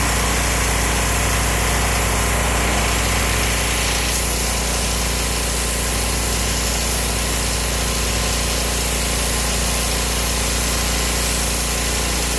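Petrol pressure washer's engine running steadily, with a constant hiss over it.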